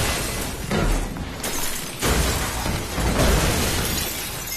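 Film sound effects of an Iron Fist strike smashing a structure apart: heavy crashes and shattering, falling debris over a deep rumble. Fresh crashes come about one and a half, two and three seconds in.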